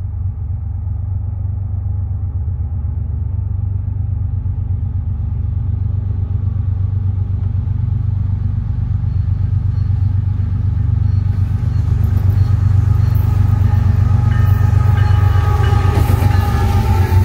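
Two CN GE ES44AC diesel-electric locomotives approaching and passing, their GEVO-12 V12 diesels making a steady low rumble that grows louder. The clatter of wheels on the rails rises over the last few seconds as the locomotives go by.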